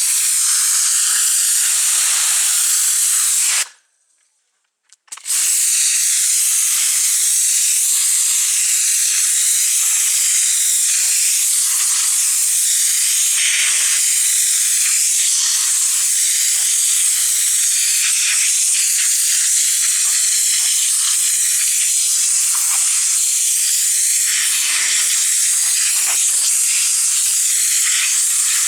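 High-pressure washer jet spraying with a steady, loud hiss. It cuts off for about a second and a half a few seconds in, then resumes.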